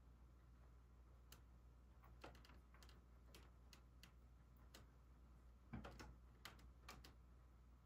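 Near silence: room tone with a steady low hum and faint, irregular clicks and ticks, a few of them bunched together about six seconds in.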